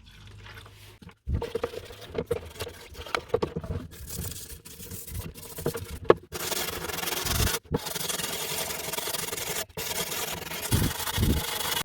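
Rusty steel saw parts being scrubbed clean after a rust-remover soak: repeated rubbing and scraping strokes, broken by several sudden cuts.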